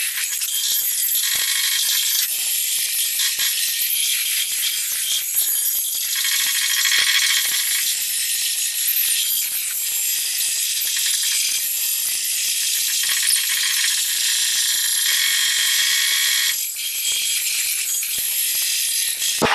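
Crowd of spectators at an indoor volleyball match making a continuous high-pitched rattling, clattering din with many sharp clicks, with almost no low end.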